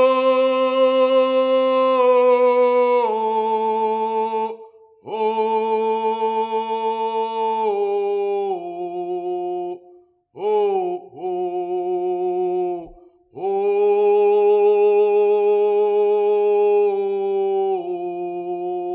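A single voice singing a chant in long, held notes with a slight waver. It sings four phrases, each stepping down in pitch, with short breaks between them.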